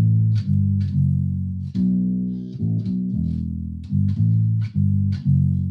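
Electric bass guitar played with the thumb-slap technique: a riff of single low notes, about two a second, each starting with a sharp percussive snap and ringing on until the next.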